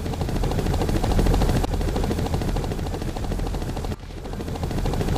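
Helicopter sound effect: the fast, steady chop of rotor blades over a low engine rumble, with a brief drop in level near the end.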